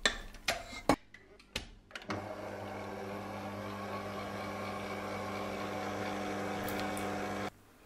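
A few knocks and clicks as the stainless-steel bowl is fitted to a stand mixer, then the mixer's motor starts and runs with a steady hum while its dough hook kneads yeast dough. The hum cuts off near the end.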